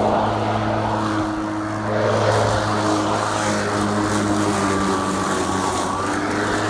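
Greenworks Pro 80V 21-inch cordless push mower running, its brushless motor and spinning blade giving a steady hum and whir.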